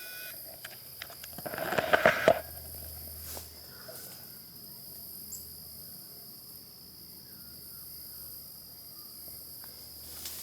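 Insects trilling on one steady high pitch, with a short burst of rustling footsteps about two seconds in.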